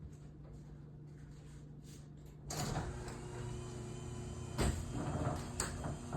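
Chamberlain belt-drive garage door opener starting up about two and a half seconds in and running steadily as a Wayne Dalton 9100 sectional garage door travels, with two sharp knocks in the second half.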